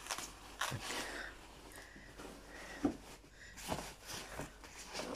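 Fabric rustling and a few soft knocks as a Hauck Shopper SLX carry cot's padded cover and frame are unfolded by hand, with the sharpest knock about three seconds in.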